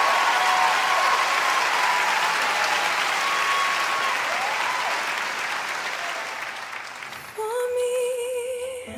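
Crowd applauding, with a few voices faintly in it, fading away over about seven seconds. Near the end a held, wavering musical note comes in as music starts.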